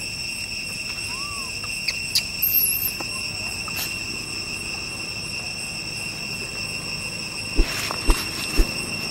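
Steady high-pitched drone of forest insects, with a few short chirps and clicks in the first few seconds. Near the end come three dull knocks about half a second apart, the loudest sounds here.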